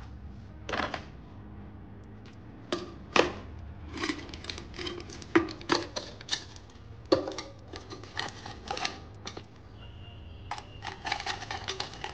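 Clicks, knocks and clatter of kitchen handling: a ceramic mug set down on a coffee machine's metal drip tray and a metal canister lid being worked, with a steady low hum underneath. A steady high tone comes in about ten seconds in.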